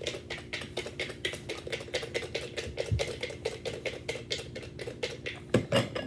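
Crunchy hot Cheetos being chewed close to the microphone: a rapid, even crunching about five or six times a second, with a couple of louder thumps near the end.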